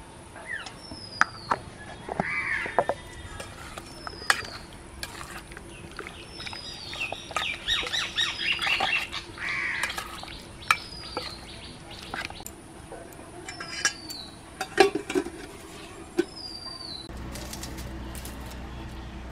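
Marinated chicken being mixed by hand in a steel bowl, with a spoon clinking on the metal and bursts of wet squelching. A bird repeats a short falling chirp every second or two.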